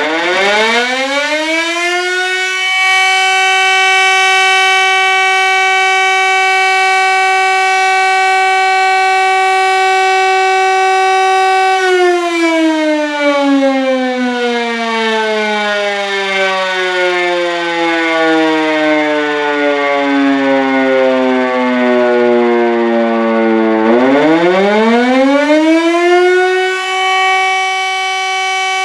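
Civil-defence siren sounding the German fire-alarm signal. It winds up to a steady tone, holds it for about ten seconds, winds slowly down over about twelve seconds, then winds up again near the end.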